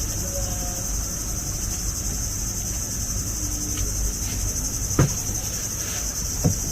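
Steady, high-pitched chorus of insects, with two short knocks about five and six and a half seconds in.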